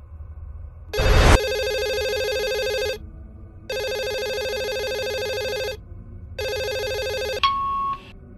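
Fax machine's built-in telephone ringing with an electronic ring of about two seconds per ring, three times, with short gaps. The first ring starts with a loud sudden thump. The third ring is cut short by a click and a brief steady beep.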